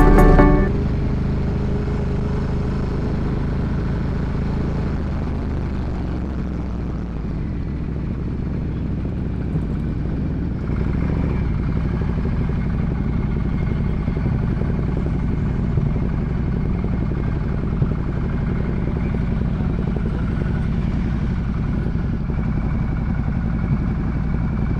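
Ducati Multistrada 1200S's L-twin engine running steadily on the move, with a low engine note; it gets a little louder about ten seconds in.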